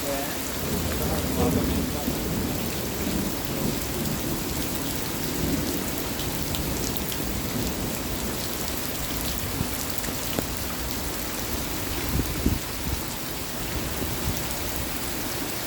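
Heavy rain pouring steadily in a storm, with a low rumble underneath and scattered drops ticking close by.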